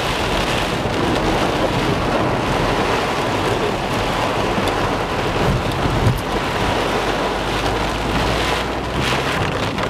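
Heavy rain drumming on a car's roof and windscreen, heard from inside the cabin, over the low rumble of the car driving through mud and running water. There is one short thump about six seconds in.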